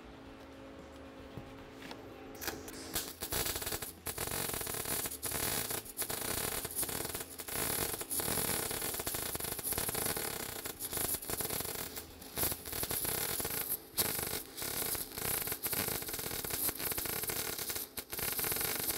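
MIG welding arc run with the wire feed speed set too low: an uneven crackling hiss that starts about two and a half seconds in and keeps breaking off for split seconds. The wire is burning back toward the contact tip instead of reaching the plate.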